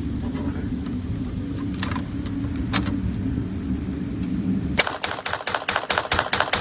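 Electronic background music with a steady beat. About five seconds in it gives way to a rapid, evenly spaced clatter of sharp cracks, about seven a second, lasting about two seconds.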